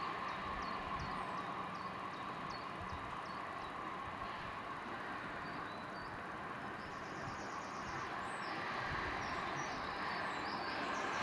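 Cable-hauled Schatzalp funicular car running up the track toward the listener, a steady running noise that grows a little louder in the last few seconds. Small birds chirp over it, a series of short repeated chirps at first and trills later.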